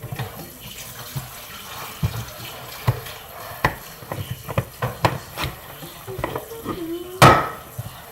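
Slime being poked and squeezed, giving irregular wet clicks and pops, with one sharper, louder knock near the end.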